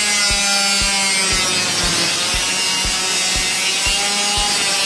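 Angle grinder with a thin cutting disc slicing through the steel wall of a painted metal tin: a steady high whine over a harsh grinding hiss.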